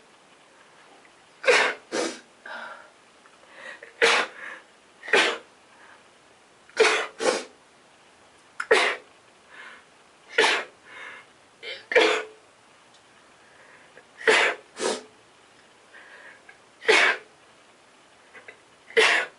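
Human sneezes in rapid succession: about fifteen sharp, loud sneezes, several in quick pairs about half a second apart, with softer sounds in the short gaps between.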